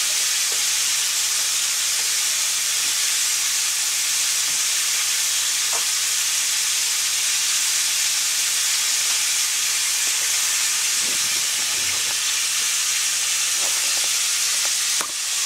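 Chicken pieces frying in hot oil: a steady, even sizzle that does not let up.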